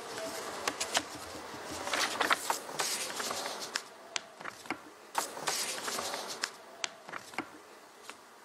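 Scattered sharp clicks and taps, roughly one every half second, over a low hissy room hubbub that fades toward the end.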